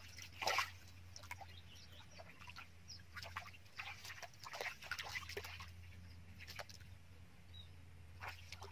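Hands splashing and squelching in shallow muddy water while groping for fish, in short irregular bursts, the loudest about half a second in, over a steady low hum.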